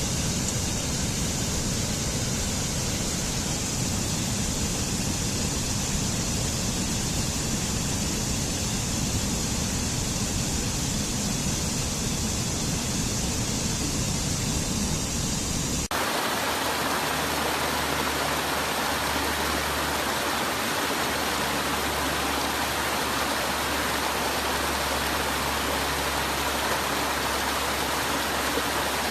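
Waterfall rushing steadily and loudly. About sixteen seconds in the sound changes suddenly from a deep, rumbling rush to a brighter, hissier one.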